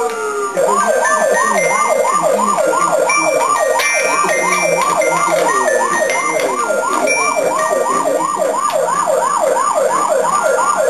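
A siren switching from a slow falling wail into a fast yelp: rising and falling sweeps about three times a second, continuous and loud.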